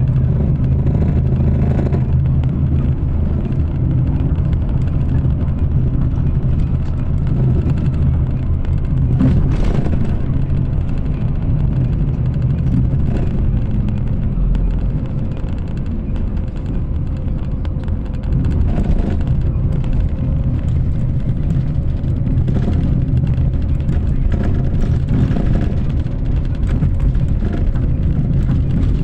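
Steady in-cabin road noise of a moving vehicle: a low engine drone and the rumble of tyres on the road.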